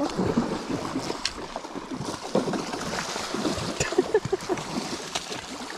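Hooked sockeye salmon thrashing and splashing in the shallow water at the river's edge, a run of short irregular splashes over the rush of the water, with wind on the microphone.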